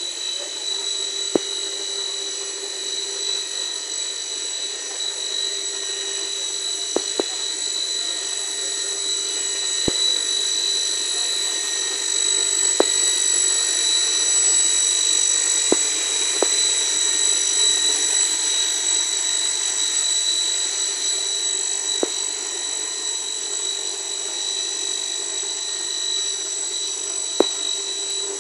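PVC wood-plastic composite board extrusion line running: a steady high-pitched machine whine over a hiss with a lower hum, broken by sharp clicks every few seconds at irregular intervals.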